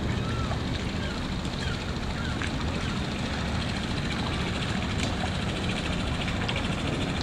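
Small outboard motor running steadily at low pitch as an open boat passes close by.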